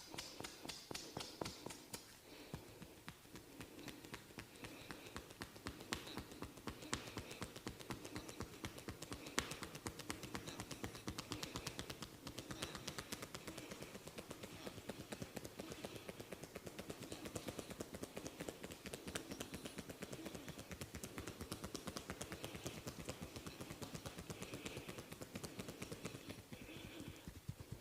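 Fast, continuous light tapping on a person's head during a head massage.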